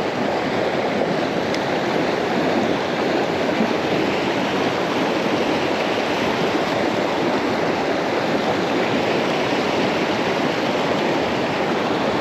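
River rapids rushing steadily over rocks: a constant wash of white water.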